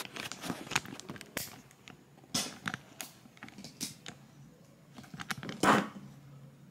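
Scattered soft clicks, taps and rustles of close handling and movement, with one louder rustle near the end.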